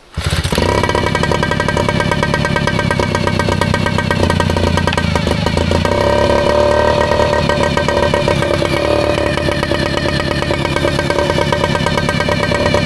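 Yamaha 3.5 hp outboard motor catching on the pull with the choke on, then running steadily at a low throttle setting. The engine, which would not start before, now starts and runs after its fuel filter was bypassed and its fuel line replaced.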